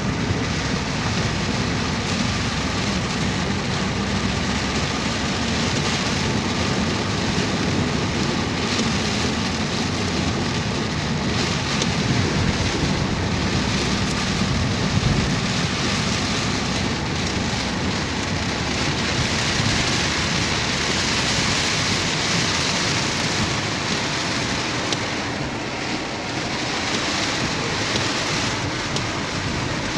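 Heavy rain pouring down steadily, a dense even hiss of rain hitting surfaces.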